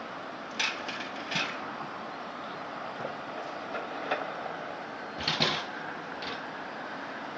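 A handful of short, sharp knocks and clatters over a steady background hiss, the loudest a quick double knock about five seconds in.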